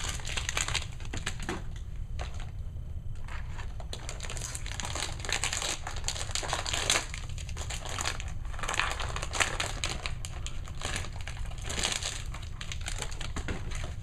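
Clear plastic toy packaging crinkling and crackling irregularly as it is handled and opened by hand.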